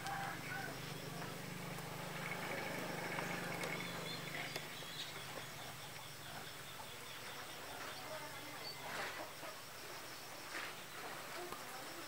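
Faint outdoor background: a low steady hum that fades out about halfway, with scattered faint high chirps and a few soft clicks and rustles.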